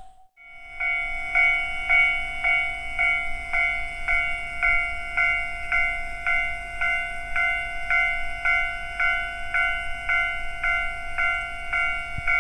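Japanese railway level-crossing warning bell ringing in a steady, even rhythm of about three strikes a second. It comes in just under a second in, after a brief silence.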